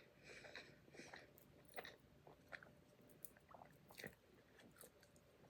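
Faint close-up chewing of a sauce-dipped piece of chicken, heard as soft, irregular mouth clicks.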